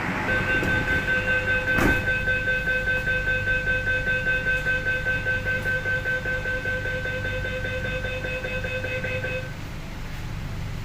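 Metro train's electronic door-closing warning buzzer, a steady buzzing tone pulsing quickly for about nine seconds before it stops, over the low rumble of the carriage. A single sharp click sounds about two seconds in.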